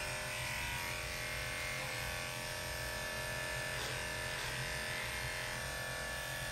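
Cordless electric pet hair clipper running with a steady buzz, trimming the fur on a Shih Tzu's legs.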